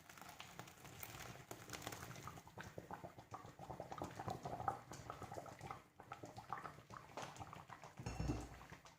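Curdled milk and whey being poured into a colander, the whey splattering and draining through in a faint crackling patter, with a low thump near the end.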